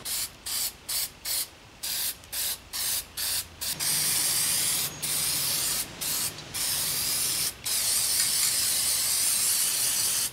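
Aerosol spray can being sprayed in a quick run of short bursts, about two or three a second, for the first few seconds. After that come longer steady sprays broken by a few brief pauses.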